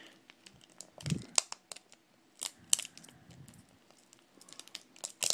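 Fingers peeling adhesive tape up from a laptop LCD panel's display-cable connector: faint, irregular crinkling with sharp little clicks and a soft bump about a second in.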